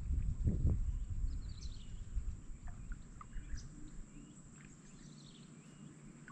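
Scattered short bird chirps and calls over a swampy lake, with a low rumble and a couple of dull knocks in the first seconds that die away about halfway through.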